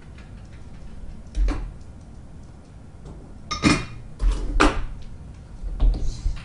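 Handling noise at a workbench: several separate light knocks and clicks as tools and small parts are picked up and set down.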